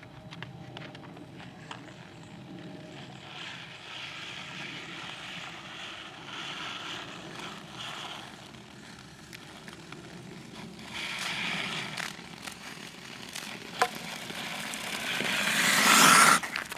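Ice skate blades scraping and hissing over an ice-glazed driveway, in repeated swells with a few sharp clicks, building near the end to a loud, long scrape that cuts off sharply.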